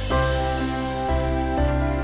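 Gentle background music: sustained, soft keyboard-like notes, with a new chord entering about a second in and again shortly after.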